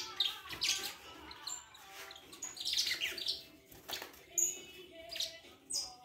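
Caged saffron finch (canário-da-terra) singing: a string of short, varied chirps and trills in quick phrases with brief pauses between them.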